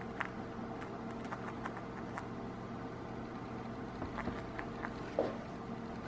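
Senegal parrot's beak nibbling and tearing at knitted cloth: irregular small clicks and snips of yarn being pulled, with one louder short sound about five seconds in.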